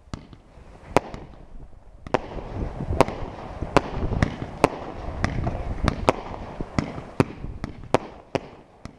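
Aerial fireworks going off: a string of sharp bangs, roughly one or two a second, with a crackling rush between them from about two seconds in as the shots burst in green and gold stars.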